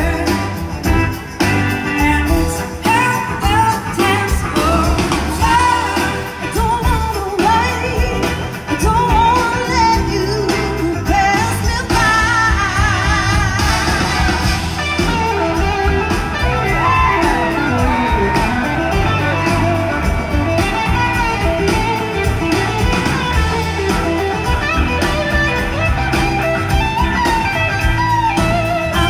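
Blues-rock band playing live through a PA, with electric guitar, drums and singing, heard from within the audience.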